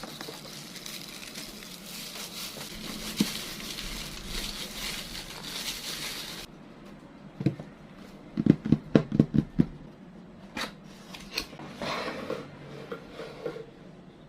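Plastic packaging crinkling and rustling as a speaker is unwrapped, which cuts off abruptly about six seconds in. A knock follows, then a quick run of about eight low knocks and scattered clicks from handling the unit.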